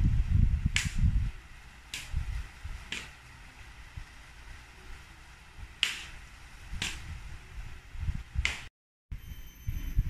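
Wind buffeting the microphone in low rumbling gusts at the start, then easing to a faint steady rush broken by six short sharp clicks about a second apart. After a sudden break near the end, thin steady high-pitched tones come in with more wind rumble.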